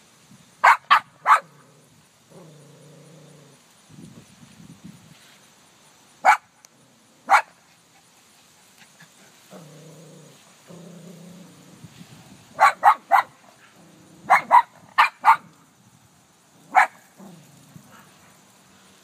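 A dog barking at its own reflection in a car door: sharp barks in quick clusters, three about a second in, two single barks a few seconds later, then a fast run of seven or so in the second half, with low growls in the pauses between them.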